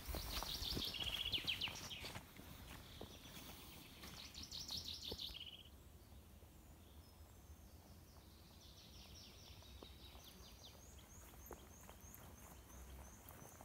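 Wild songbirds singing. Rapid trilled phrases fill roughly the first five seconds, and a run of about ten short, high, evenly spaced notes follows near the end.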